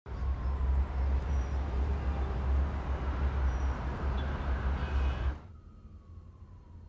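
City traffic ambience: a steady low rumble of traffic with a few faint high tones, which cuts off abruptly about five seconds in, leaving a much quieter room tone.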